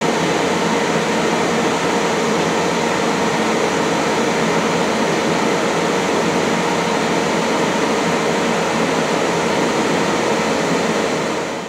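Ninja Foodi Max Health Grill's fan running, a steady rush of air with a faint hum, as the unit heats up from cold.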